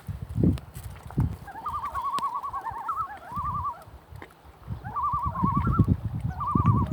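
Several common loons giving tremolo calls: rapid quavering, laughing notes that overlap in chorus, one bout about a second and a half in and another near the end. Low muffled thumps sound underneath.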